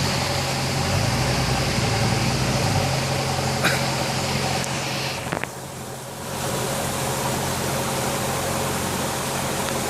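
Off-road 4x4's engine running steadily under a constant rushing hiss. The hiss briefly drops away a little past halfway, then returns.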